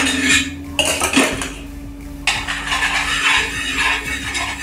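A utensil scraping and clinking on a frying pan as oil is spread over it, in a short burst at the start and a longer stretch from about halfway on, with a steady low hum underneath.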